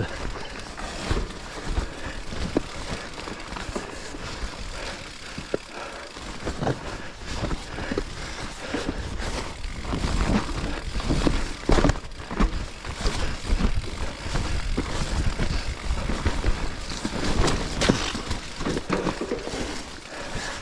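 Specialized Levo electric mountain bike riding over a rough trail: tyre noise and a low rumble, with frequent irregular knocks and rattles from the bike jolting over roots and stones.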